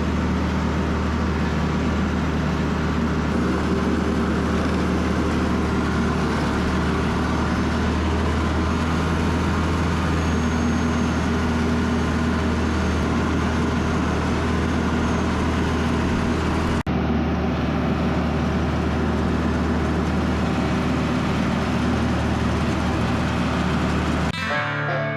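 Tractor engine running steadily under work, a constant low drone.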